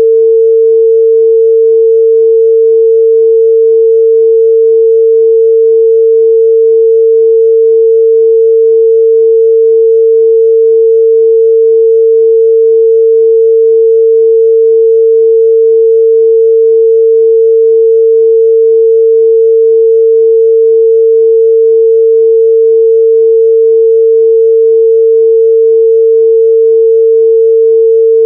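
A steady, loud 451 Hz pure sine test tone, one unchanging pitch with no other sound.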